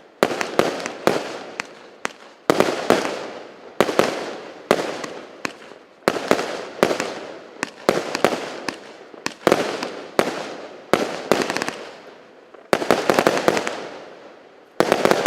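Consumer fireworks cake (a 0.8-inch, 169-shot battery) firing: a rapid run of sharp bangs, each trailing off in crackle, with a fresh cluster about every second.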